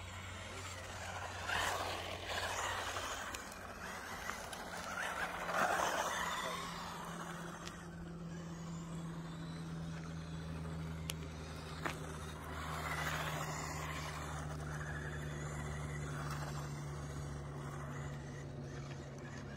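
Small 1/16-scale 4WD electric RC cars (stock SG1603 and SG1604 on road tyres) driving on gritty asphalt: electric motor and gear whine with tyre noise, swelling loudest as they pass about two and six seconds in and again around thirteen seconds. A steady low hum runs underneath.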